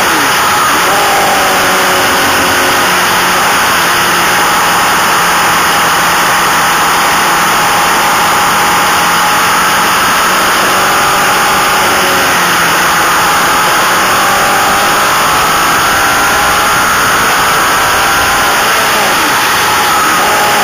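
Racing motorcycle at speed, recorded onboard: its engine note rises and falls with the revs under heavy wind rush on the microphone. The engine pitch drops sharply a little after the start and again near the end.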